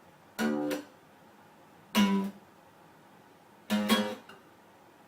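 Guitar strings strummed three times, about one and a half seconds apart, each a short chord with a quick second stroke that rings out for about half a second.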